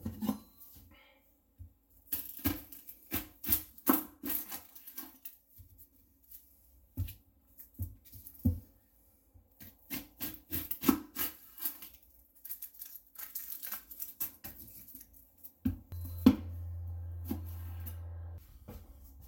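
Kitchen knife chopping an onion on a wooden cutting board: runs of quick, sharp chops in several bursts. A low steady hum comes in for a couple of seconds near the end.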